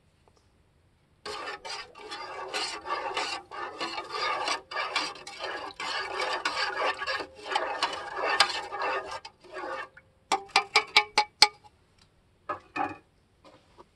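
Objects being handled: several seconds of scraping and rustling, then a quick run of about seven light clinks and two more near the end.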